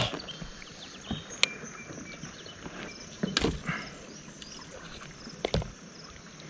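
Handling sounds of a fish being unhooked with pliers over a landing net in a kayak: a few sharp clicks and knocks, with a duller thump a little past three seconds in, over faint open-air background.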